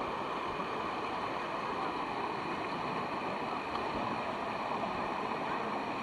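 Steady rushing of water spilling over the travertine ledges of a waterfall.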